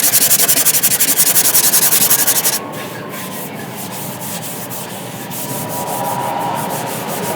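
Body filler on a car door being sanded with 80-grit: rapid, evenly spaced scraping strokes for about two and a half seconds, then a steadier, quieter rasping with a faint whine that grows near the end.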